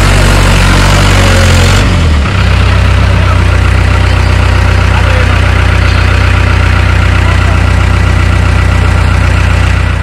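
Farm tractor's diesel engine running steadily close by, with a brief dip about two seconds in.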